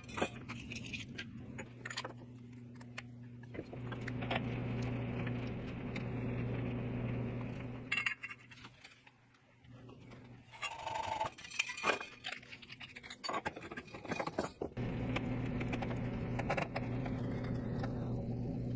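Metal clinks, knocks and scrapes from working 3/4-inch thin-wall metal conduit by hand, as it is cut, bent and fitted. A steady low hum runs underneath and drops out for a few seconds midway.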